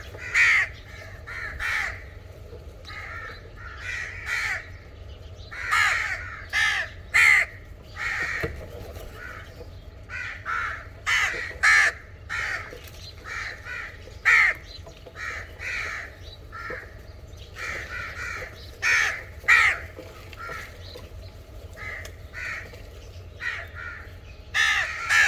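Crows cawing over and over, many short caws in irregular runs, sometimes several in quick succession.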